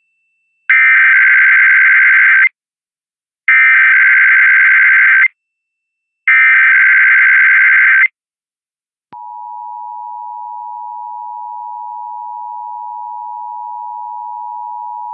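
Emergency Alert System monthly test signal. Three identical bursts of SAME digital header data, each about two seconds long with about a second between them, encode the Required Monthly Test. About a second after the last burst, the steady two-tone EAS attention signal starts and holds.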